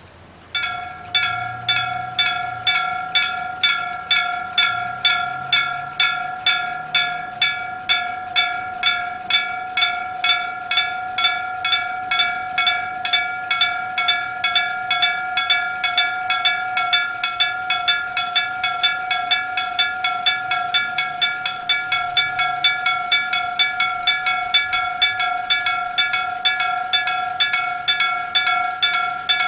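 Old electric-bell (denshō-type) level-crossing alarm, a bell fixed on the crossing post and struck directly by its electric hammer, starting suddenly about half a second in. It rings a steady, clear 'kan! kan! kan!' at about two strikes a second, warning that a train is approaching.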